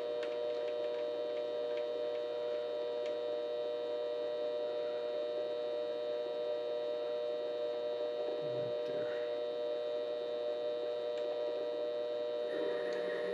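Vevor 7x12 mini-lathe running with a steady whine from its motor and gearing while a cutoff tool parts off round stock. There are a few light clicks in the first couple of seconds.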